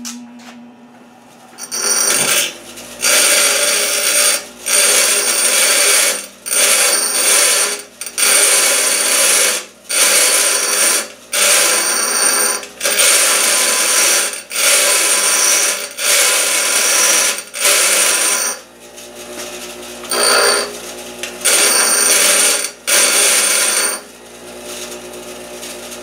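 Pneumatic air hammer rattling against a steel door hinge in repeated bursts of about a second each, a dozen or so in a row, then two more after a short pause, with a high metallic ring: driving out the old hinge pins.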